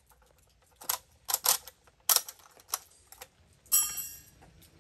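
7.62x39 cartridges being pressed from a stripper clip into a Type 56 SKS's fixed magazine, a string of sharp metallic clicks. About 3.7 s in, the loudest sound: the bolt closes with a sharp metallic clack and a ringing that fades, the empty clip coming out.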